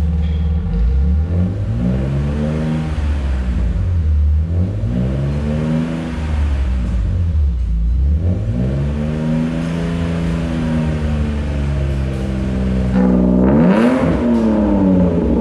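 BMW E39 528i's M52 straight-six being revved from the exhaust end through a TechPro valvetronic exhaust, valve closed. It goes in several slow rises and falls in engine speed, then a quick sharp blip near the end.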